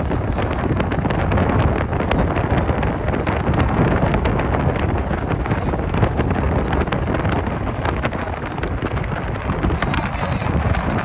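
Strong wind buffeting the microphone: a steady loud rush with crackling gusts.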